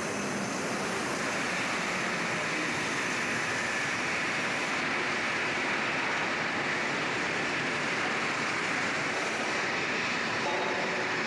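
Steady, even din of a large locomotive repair shop: a continuous machinery and air noise with no distinct knocks or strikes.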